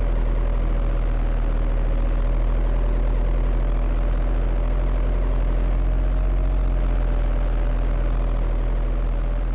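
Steady hum and whine of the small electric motors in remote-control construction models, running continuously with a slightly wavering whine over a low drone.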